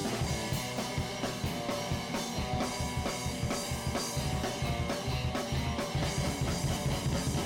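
Rock music with a drum kit and guitar playing a steady beat.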